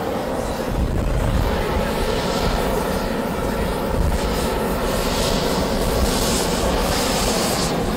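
Gas hand torches roaring steadily as they heat hot glass, with a deep low rumble underneath.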